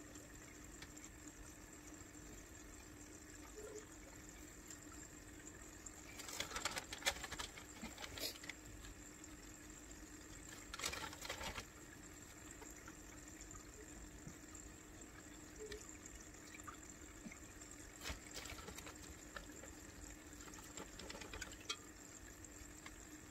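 Aquarium water splashing and trickling in four short spells, over a faint steady hum.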